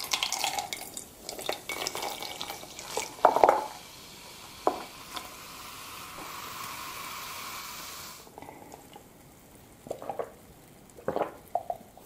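Carbonated soda poured from a can into a stainless steel mug, splashing for about four seconds, then the foam fizzing in a steady hiss that cuts off suddenly about eight seconds in. A few light taps follow near the end.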